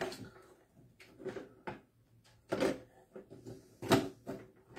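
Handling noises from a small power-supply circuit board and its wires being moved about on a plastic holder: a few light, irregular knocks and clicks, the sharpest one a little before the end.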